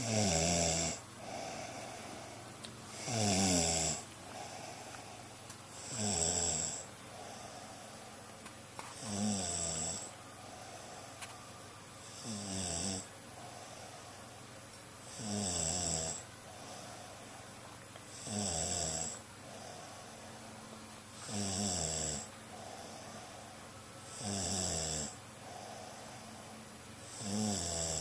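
A sleeping person snoring: a loud snore about every three seconds, each falling in pitch as it goes, with a softer breath between.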